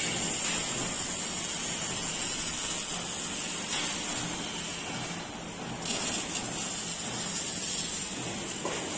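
MIG welding arc on sheet metal, from an INMIG 250 IH welder, giving a steady sizzling hiss that thins briefly about five seconds in.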